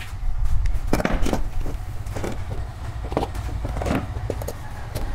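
Plastic miniature circuit breakers, pliers and wire being handled on a wooden tabletop: a scatter of short clicks and knocks, the sharpest about a second in, over a steady low hum.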